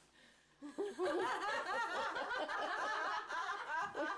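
Several people laughing together, breaking out about a second in.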